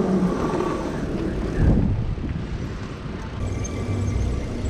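Wind buffeting the microphone and low road rumble while riding an e-bike through city streets, with a louder low gust a little under two seconds in.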